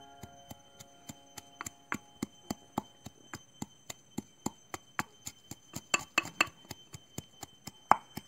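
A long wooden pestle pounding garlic and green chillies in a small metal mortar. It strikes steadily about three to four times a second, and the blows grow sharper and louder around six and eight seconds in.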